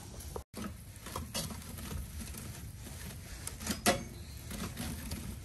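Steel fire poker scraping and knocking among embers and ash in the steel firebox of a live-fire grill: scattered clicks and taps, the sharpest about four seconds in, over a low rumble.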